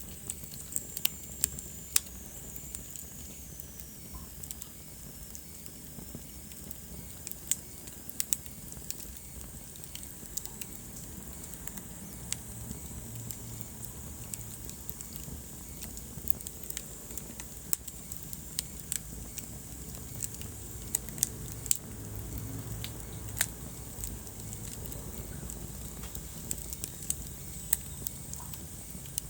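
Wood fire in a fireplace crackling, with irregular sharp pops over a steady low rumble and hiss of the flames. A faint high whistle falls in pitch over the first few seconds.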